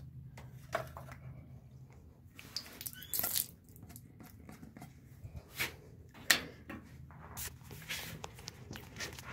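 Scattered light clicks, taps and rubs from handling, with a short hiss about three seconds in and a sharper click a little after six seconds.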